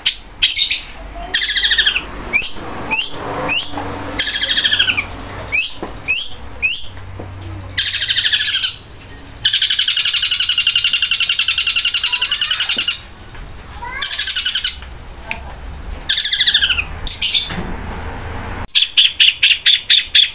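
Caged long-tailed shrike (cendet) singing loudly, imitating the common flameback woodpecker (pelatuk bawang): a series of sharp falling whistles, with a long fast rattling trill of about three and a half seconds near the middle. Near the end it breaks into a quick run of short notes.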